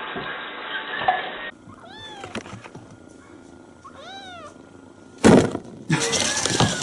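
A cat meowing twice, each meow rising and then falling in pitch, followed by two loud bursts of noise near the end.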